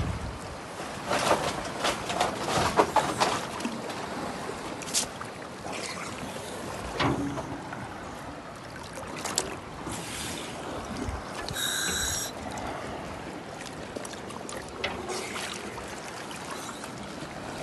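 Sea water splashing and lapping beside a boat as a diver in a wetsuit moves at the surface, with scattered splashes and knocks, busiest in the first few seconds. A short high tone sounds about twelve seconds in.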